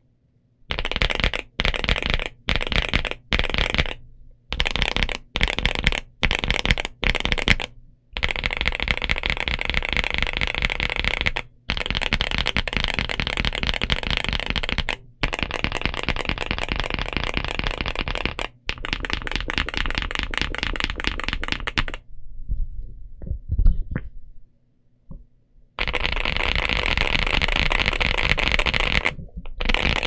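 Typing on a Momoka Zoo65 mechanical keyboard with an FR4 plate, Silver Bullet frankenswitches (Wuque Studio Morandi housing and spring with a Kailh Turbo Silver stem) and PBT keycaps. Short bursts of keystrokes come first, then fast continuous typing with brief pauses. About three-quarters through comes a quieter lull with one louder knock, before fast typing resumes.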